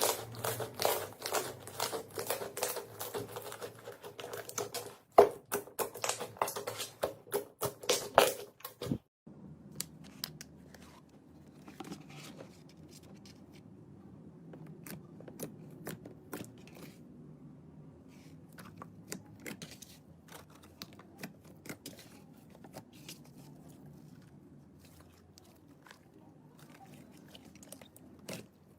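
Slime being squeezed and kneaded by hand, giving dense wet clicks and pops; after about nine seconds it cuts to quieter handling with sparser clicks.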